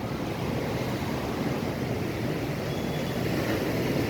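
Steady rushing rumble of ocean surf breaking on a beach, slowly growing a little louder.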